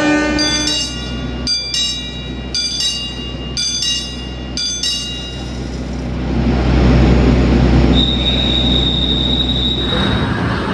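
A railway station genta (block-signal bell) struck about eight times in quick succession, each strike ringing: the warning that a train is about to pass. A low train rumble then swells, with a steady high squeal near the end.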